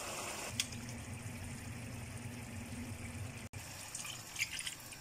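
Pan of kofte in tomato gravy simmering over a steady low hum; after a cut about halfway through, water poured from a glass jug splashes and bubbles into the hot gravy.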